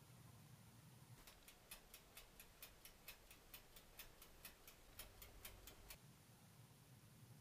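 Countertop rotisserie oven's mechanical dial timer ticking, about four to five ticks a second, with a faint low hum of the running oven under it; the ticking starts about a second in and stops about six seconds in.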